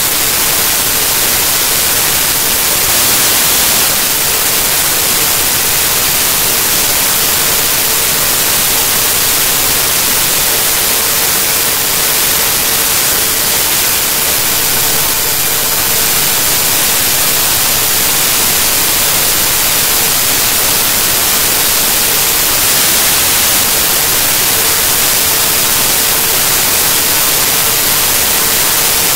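Loud, steady hiss of static, strongest in the treble and unchanging throughout, with a faint steady tone underneath.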